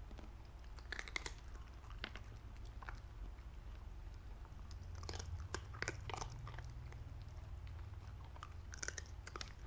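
Corgi crunching and chewing crisp fried sweet potato chips: irregular sharp crunches in small clusters, over a low steady hum.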